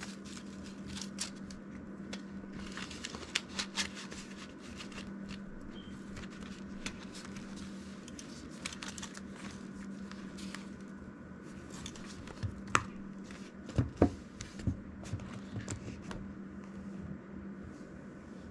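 Paper banknotes rustling and flicking as they are counted and handled along with a ring-binder cash wallet and its envelopes. A few sharper clicks and knocks come near the end.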